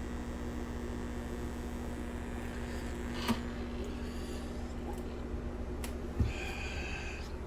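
Steady electrical mains hum, with two short sharp knocks about three and six seconds in and a brief high-pitched squeak near the end.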